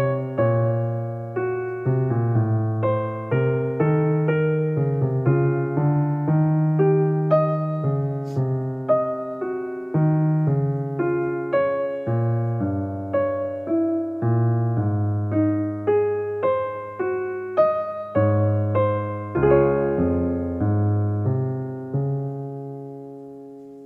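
Background piano music: a slow run of struck chords and melody notes, each fading after it is played, ending on a chord that dies away near the end.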